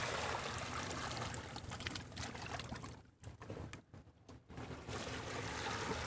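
Seawater trickling and washing among shore rocks at low tide: a steady watery hiss that drops away briefly a little past halfway.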